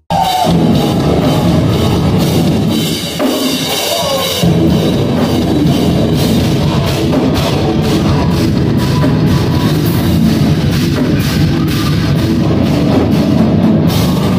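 Live metal band playing loud: distorted electric guitars, bass and a drum kit with rapid cymbal and drum hits. About three seconds in the low end briefly drops out, then the full band comes back in.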